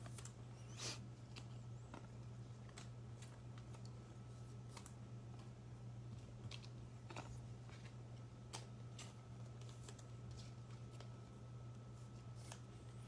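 Trading cards being handled and set down on a tabletop: scattered faint clicks and taps at irregular intervals, over a steady low hum.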